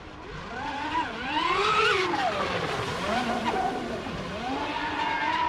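MHZ 1890 RC speed boat's LMT 3080 brushless electric motors and propeller whining. The pitch rises and falls several times as the throttle is opened and eased.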